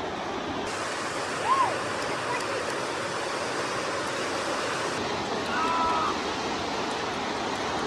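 Surf breaking and washing up a sandy beach, a steady rush of wave noise, with two brief faint high-pitched calls over it, about a second and a half in and near six seconds.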